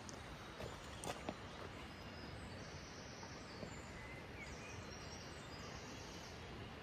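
Quiet outdoor ambience: a steady background hiss, a few soft knocks in the first second and a half, and high thin trills of small birds twice in the middle.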